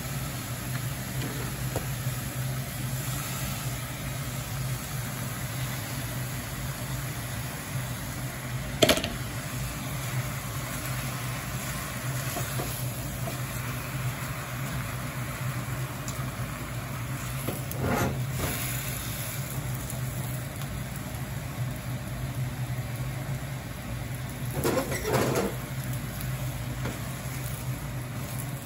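Steady hum and hiss of beef, onion and cabbage cooking in an enamel pot over a gas burner, with three sharp knocks of a silicone ladle against the pot, the loudest about nine seconds in.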